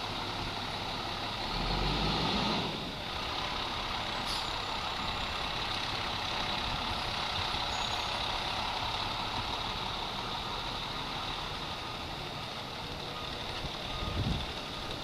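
Fire truck engine running steadily, with a louder surge about two seconds in and a brief low thump near the end.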